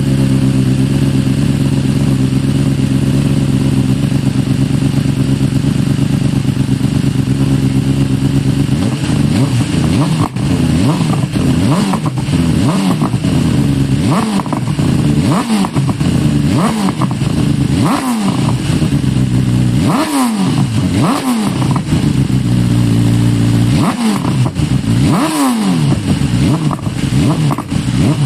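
BMW S1000RR (K67) inline-four running through a full Arrow exhaust system (headers and Pista silencer). It idles steadily for the first third, then is revved in a series of short throttle blips, each rising and dropping back.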